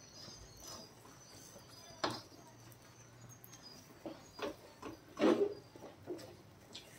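A wooden spatula stirring thick wheat halwa in a heavy brass pan, making irregular knocks and scrapes against the metal as the sticky mass is turned, with the loudest knocks about five seconds in. The halwa is cooked thick enough that the ghee is separating out.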